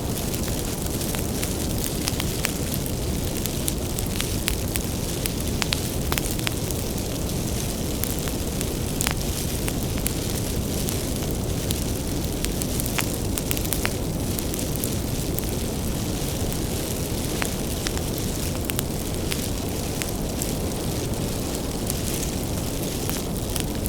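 Wood bonfire burning: a steady low rush of flame, with frequent sharp crackles and pops from the burning firewood scattered throughout.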